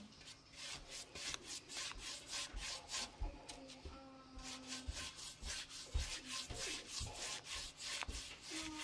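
Paintbrush scrubbing chalk paint onto a ceramic vase: quick back-and-forth bristle strokes, about five a second, with a short pause about three seconds in.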